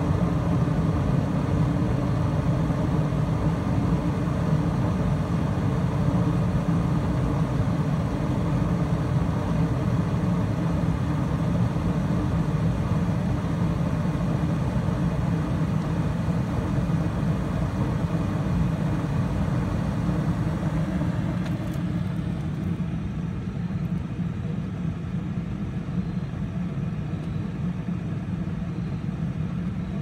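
Packaged gas heating unit (gas pack) running steadily with its burners firing on first stage: a continuous hum and rumble from the inducer motor, burner and blower. The sound becomes a little quieter and duller about three quarters of the way through.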